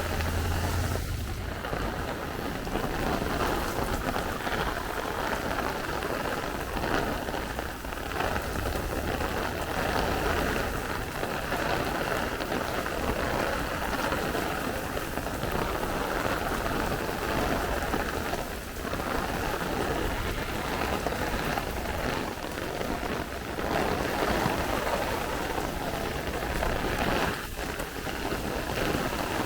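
Heavy thunderstorm downpour: rain pouring steadily onto the street and nearby surfaces, with a low rumble underneath that is strongest at the start.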